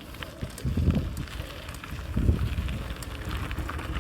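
Wind buffeting the microphone in low gusts, about a second in and again after two seconds, over a steady light crackling.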